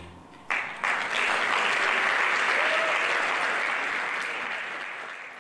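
Audience applauding. It starts suddenly about half a second in, as the song's last note dies away, and tails off near the end.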